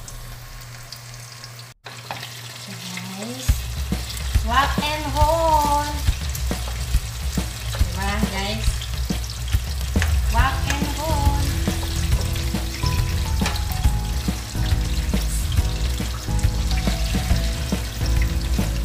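Apple pie rolls in spring-roll wrappers deep-frying in hot oil in a stainless steel pan, a steady sizzle that turns much louder about three and a half seconds in. Short sharp clicks come from a wooden spatula turning the rolls in the pan.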